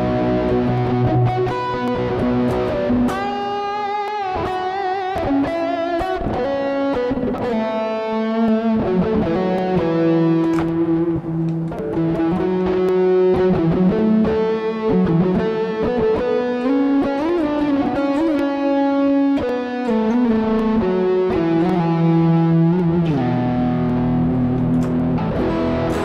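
Electric guitar played through a Harley Benton American TrueTone pedal, an overdrive with a Fender-style amp simulator, with added mixer reverb. It plays melodic single-note lines with long held notes, some shaken with vibrato or bent.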